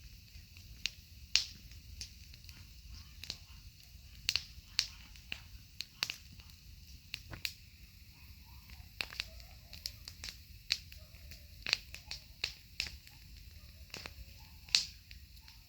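Wood campfire crackling: irregular sharp pops and snaps, a few of them much louder than the rest, over a low steady rumble.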